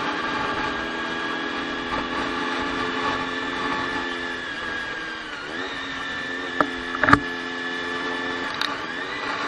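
Motorcycle engine running at a steady cruise over wind rush, its note dipping and climbing back about five and a half seconds in and again near the end as the throttle is eased and reopened. Two sharp knocks about seven seconds in are the loudest sounds.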